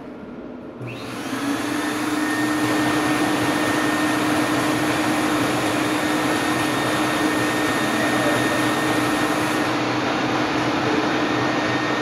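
STEP 100 escalator step-cleaning machine switched on about a second in, its motor spinning up over a second or so and then running steadily with a constant hum.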